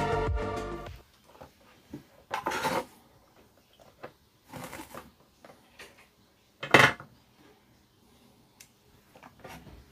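Metal tools clinking and clattering on a workbench in a few short, separate bursts, the loudest a sharp clatter about seven seconds in, as work on desoldering a transistor from an amplifier board goes on. Background music fades out in the first second.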